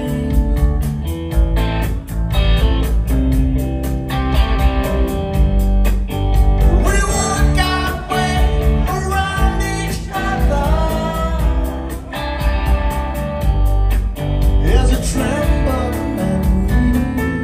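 Live rock band playing: electric guitar over bass and drums, with a man singing.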